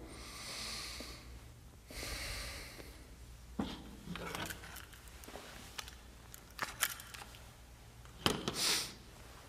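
Quiet stretch of two soft breaths, then scattered small clicks and knocks of a handgun and objects being handled on a table, with a short rush of noise near the end.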